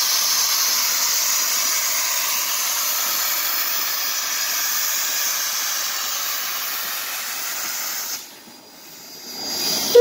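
Shay geared steam locomotive No. 11 venting steam in a loud, steady hiss that cuts off suddenly about eight seconds in.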